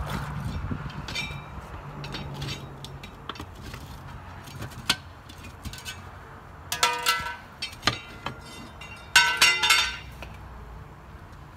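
Steel tire iron and split lock ring of a multi-piece forklift wheel clanking and clinking as the lock ring is pried off and handled. There are lighter taps throughout and two loud ringing metal clangs in the second half.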